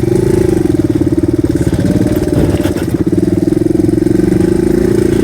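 Single-cylinder dual-sport motorcycle engine running steadily at low revs, its pitch holding nearly level with a slight dip about two seconds in.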